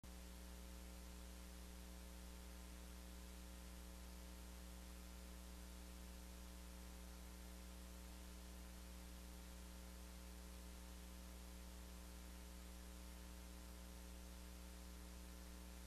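Near silence: a faint, steady electrical mains hum with a soft hiss.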